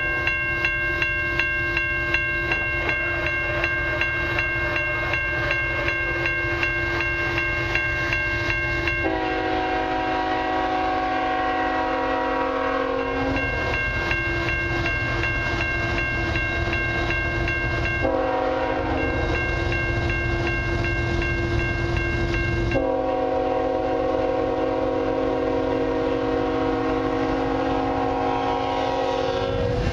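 Railway crossing bell ringing steadily with regular strikes. The horn of an approaching CN freight train's lead locomotive sounds a series of long blasts over it, and the low rumble of the locomotive grows near the end as it reaches the crossing.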